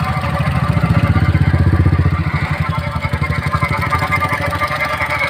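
2016 Honda Amaze's 1.2-litre four-cylinder petrol engine idling with a fast, even rhythmic noise from the pulley side of the accessory belt drive. The noise comes from the belt tensioner or idler pulley, which the mechanic identifies as worn and abnormal. It grows louder about a second in and eases a little after two seconds.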